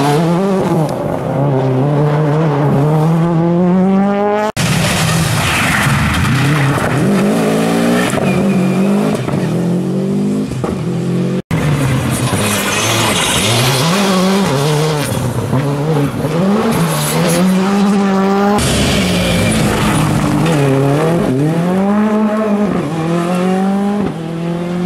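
Rally cars accelerating hard out of a corner, one after another, their engines revving up and dropping at each gear change. There are abrupt cuts from one car to the next.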